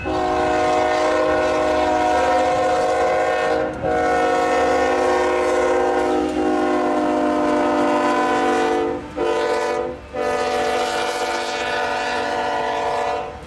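Union Pacific freight locomotive's air horn sounding the grade-crossing signal as the train passes: long, long, short, long, a steady chord of several notes. Low rumble of the train rolling underneath.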